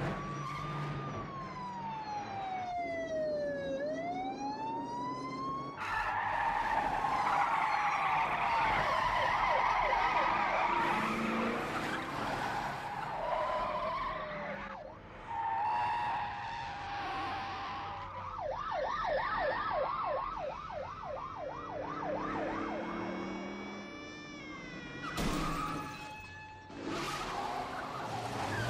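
Police car sirens wailing, their pitch sweeping down and back up, over squealing tyres and running car engines. About two-thirds of the way through, a siren switches to a fast yelp for a few seconds. Near the end come two sudden loud bursts of noise.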